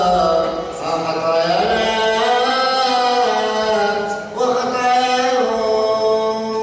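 Syriac-rite liturgical chant: long sung phrases with held, slowly gliding notes over a steady low held tone, with a short break between phrases about four seconds in.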